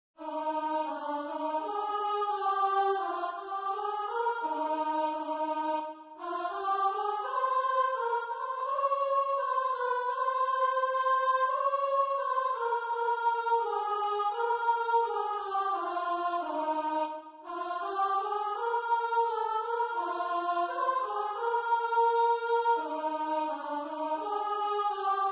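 Soprano part of a choir song: a single melody line in a singing tone, one note at a time, moving up and down in steps. It breaks briefly between phrases about six and seventeen seconds in.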